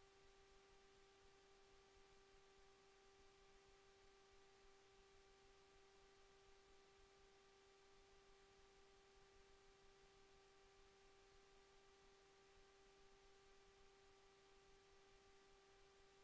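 Near silence with a faint, steady, unchanging hum: a single tone with fainter overtones above it.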